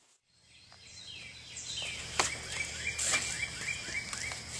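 After a moment of silence, outdoor background fades in: a songbird sings a run of quick down-slurred chirps, about three a second, over a steady low hum, with a few sharp clicks.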